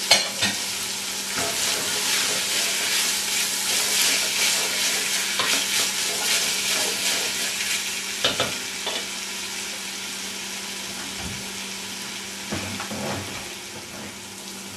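Diced celery, onions and potatoes sizzling in olive oil in a stainless steel pot, stirred with a wooden spoon, with a few knocks against the pot. The sizzle eases off in the second half.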